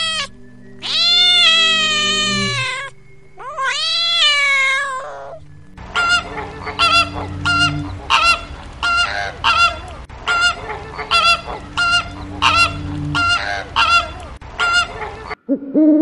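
A domestic cat meows twice in long, drawn-out calls. Then, from about six seconds in, a flock of flamingos honks over and over in short calls, about two a second, which stop abruptly near the end.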